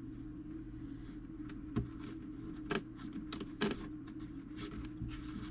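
A few irregular small clicks and taps of metal parts on a fusee clock movement being handled and turned while the cords are tensioned, over a steady low hum.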